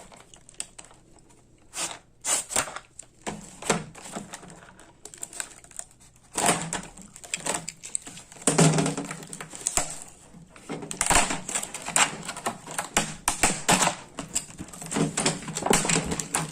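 A boxed plastic bit-set case being unpacked and handled: irregular clusters of plastic clicks, clacks and rustles, with short quiet gaps between them.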